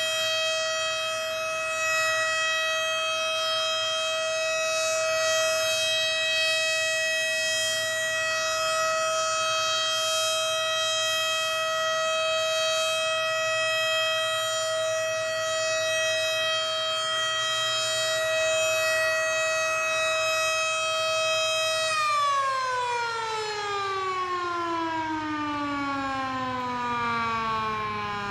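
Sparton (Sparks-Withington) Model 37 outdoor warning siren holding one steady, unwavering tone: the Alert signal, used here for the tornado warning test. About 22 seconds in it shuts off and winds down, its pitch falling steadily.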